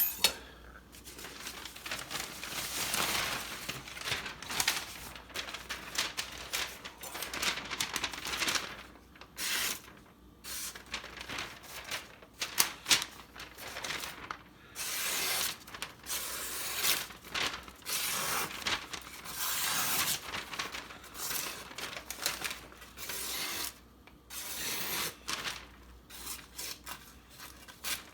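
Repeated strokes of a sharpening stone drawn along the edge of a kitchen knife clamped in a guided sharpening system, each stroke lasting about a second with short pauses between.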